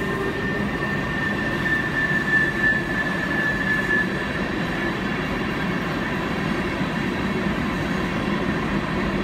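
Freight train of covered hopper cars rolling past, a steady rumble of wheels on rail. A thin, high-pitched wheel squeal rises over it in the first seconds and fades about four seconds in: wheel flanges rubbing the rail on the tight curve.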